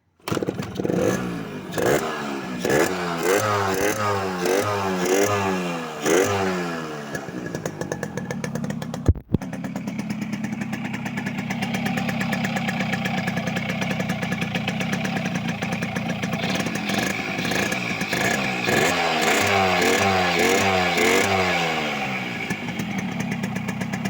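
Yamaha RX115 two-stroke single-cylinder motorcycle engine, fitted with a V80 flywheel and a new-model exhaust, revved in quick repeated blips that rise and fall. It then holds a steady higher speed for several seconds and is blipped again near the end.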